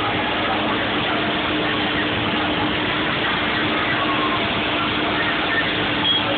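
A vehicle engine idling with a steady hum, under an even wash of street traffic noise.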